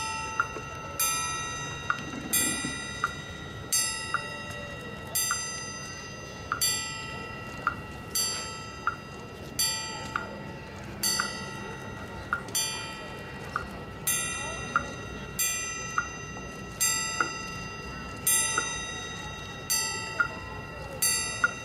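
Bell-like metallic strikes repeating evenly about once a second, each ringing briefly and fading, with a short high tick alongside each strike.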